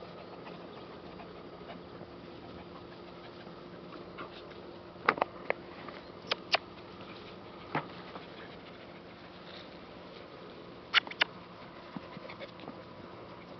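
A puppy and a larger dog play-fighting, with a handful of brief sharp yips over a quiet background: several around the middle and a quick pair near the end.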